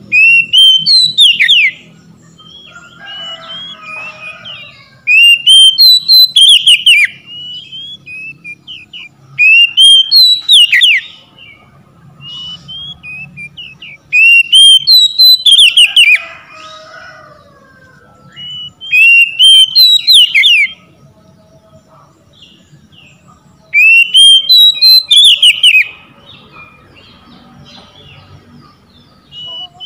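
Oriental magpie-robin singing: loud, clear whistled phrases of quick rising and falling notes, each about two seconds long, repeated about every four to five seconds, six times over with a seventh starting at the end.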